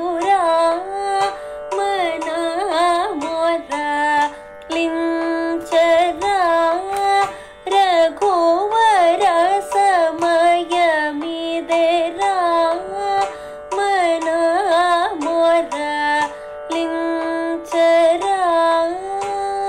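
Carnatic music: a swarajathi in raga Harikambhoji, sung as a melody full of gamaka ornaments over a steady drone. It settles on a long held note near the end.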